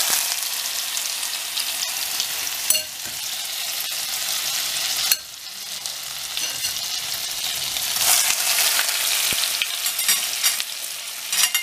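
Egg-dipped bread slices sizzling in hot oil in a frying pan, with a few sharp clicks. The sizzle drops suddenly about five seconds in and swells again around eight seconds.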